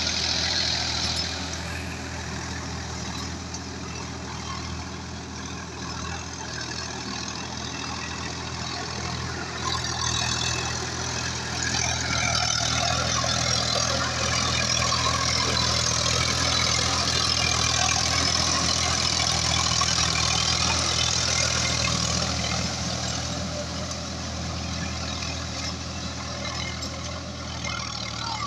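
Sonalika tractor's diesel engine running steadily under load while pulling a cultivator through wet mud, with the splash and churn of its tyres in the muddy water. It grows louder as the tractor passes close, about halfway through, then fades as it moves away.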